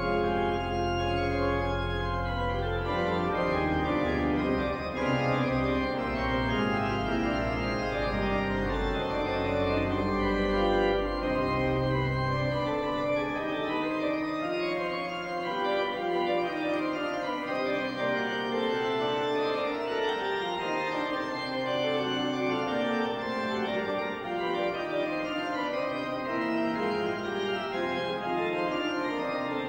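Organ playing slow, sustained chords in a liturgical style, with deep pedal bass notes under them for the first twelve seconds or so; then the bass drops out and the chords continue in the upper range.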